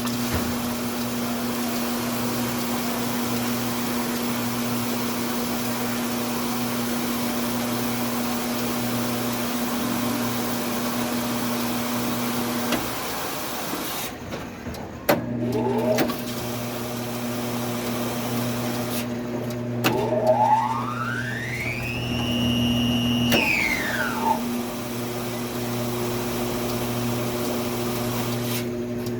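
18-pound commercial washer humming steadily while powered but not starting to wash. This is the fault that was traced to a failed door start solenoid. About two-thirds of the way in, a whine rises, holds and falls away.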